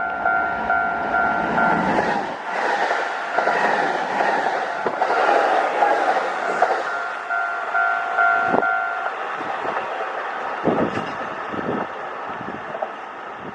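Japanese level-crossing alarm ringing in a steady two-tone repeat, about three strokes a second, while a Kintetsu Osaka Line electric train passes with a loud rush of wheel and running noise. The alarm stops about nine seconds in, and a few heavy wheel thumps over rail joints follow as the train clears.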